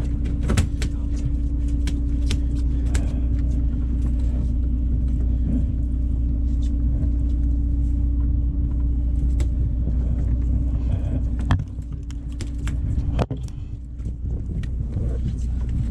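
Steady low drone and hum of a sportfishing boat's machinery running, with scattered clicks and knocks of handling on deck. The drone drops somewhat quieter about twelve seconds in.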